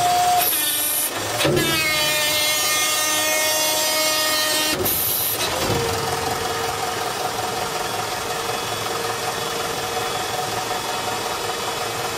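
Electric hydraulic pump, a salvaged forklift pump motor, whining as it drives the hook-lift cylinders to lower a tipped roll-off bin. The whine breaks off briefly twice, about a second in and again near five seconds, then settles lower and steady for the rest.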